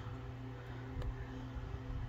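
Soft ambient background music with steady held tones, and a single light click about a second in as the playing cards are handled.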